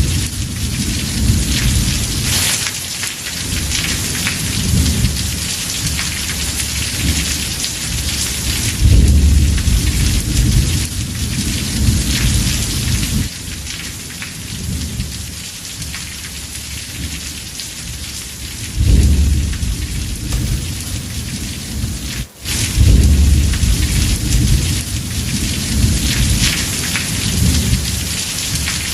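Heavy rain falling steadily, with repeated low rolls of thunder rumbling and fading every few seconds. The sound cuts out for an instant about three quarters of the way through.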